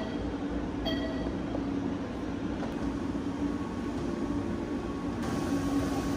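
Matrix treadmill running with a steady low hum. Its console keypad gives a short electronic beep about a second in as the walking speed is keyed in.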